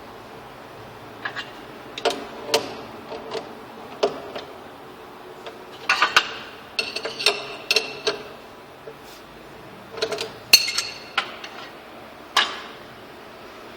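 Irregular sharp clicks, taps and metallic clinks of small metal parts being handled and fitted together, in a few clusters with short pauses between them. Some strikes ring briefly. These fit an oscillating knife tool being mounted in a CNC router's spindle.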